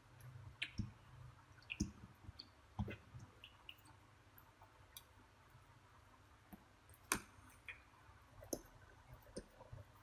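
Faint, irregular clicks and soft taps from hands shaping a ball of bread dough on a silicone baking mat, the sharpest about two, three and seven seconds in.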